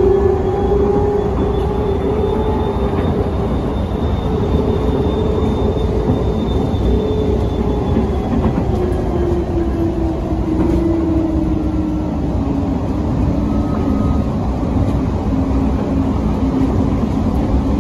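DFW Skylink people-mover train (Bombardier Innovia APM 200) running, heard from inside the car: a steady running noise with an electric motor whine that slowly falls in pitch.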